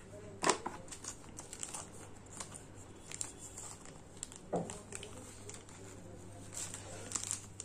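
Clear plastic sleeve on a new smartphone crinkling as the phone is handled and the plastic is peeled back, with two sharp knocks, about half a second in and just past the middle.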